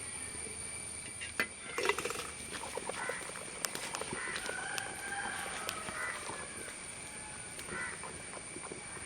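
Domestic fowl calling in short bursts, with a few sharp clicks about two seconds in.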